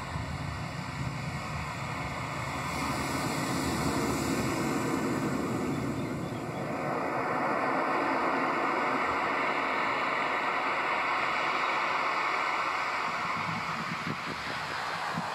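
Steady rushing ambient noise, like a mix of wind, water and traffic. It swells about three seconds in and again from about seven seconds, then eases near the end.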